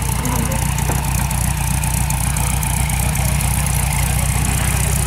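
Motor trike engine idling steadily with an even low rumble.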